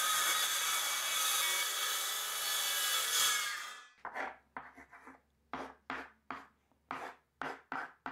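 Circular saw running and cutting through a plywood sheet, stopping about three and a half seconds in. Then a carpenter's pencil scratching on the plywood in about ten short strokes.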